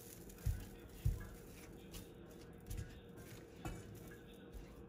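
Silicone spatula stirring frozen strawberries and sugar in a nonstick pan, with a few soft, dull knocks as it pushes the fruit against the pan.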